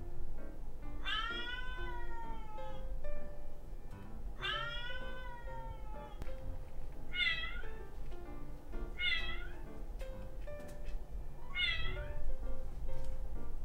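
Cat meowing over background music: two long meows that fall in pitch, then three short, higher meows spaced a couple of seconds apart.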